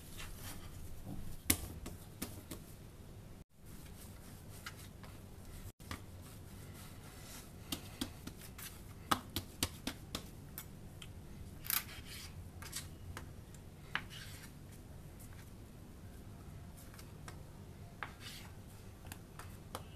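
Faint scattered taps and clicks of risen pita dough being kneaded on a wooden board and cut into pieces with a knife, over a low steady hum.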